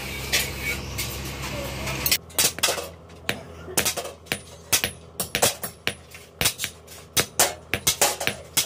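Forge fire burning with a steady low hum. About two seconds in, the hum stops and a hammer starts striking red-hot steel held in tongs on a steel-block anvil: a quick, uneven run of sharp metallic blows, about three a second.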